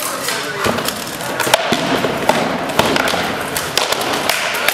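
Armoured fighters' rattan swords and wooden shields clattering together and against armour: a string of sharp knocks and thuds, the loudest about a second and a half in.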